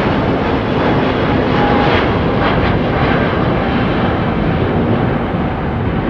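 Airbus A350's Rolls-Royce Trent XWB turbofan engines running at take-off power as the airliner climbs away, a loud, steady jet roar.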